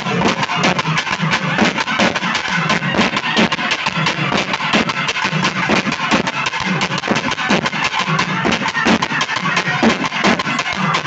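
Loud music with a fast, dense beat.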